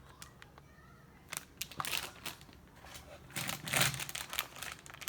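Plastic toy packaging crinkling and rustling in short, irregular bursts as packaged collectibles are handled, with the loudest bout a little over halfway through.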